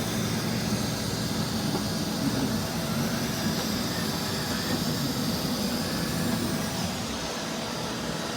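Roomba robot vacuums running, their motors and brushes giving a steady whir with a faint high whine.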